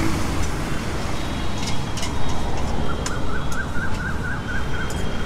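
Chole sizzling on a large hot iron tawa, with a steel ladle clinking and scraping against the metal, over steady road traffic. A faint warbling tone sounds from about three seconds in.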